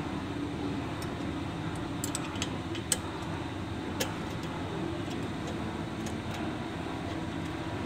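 A hex key clicking against a screw head and steel collar as a screw on a semi-automatic filling machine is loosened. A few scattered sharp metal clicks, the sharpest about three seconds in, over a steady low hum.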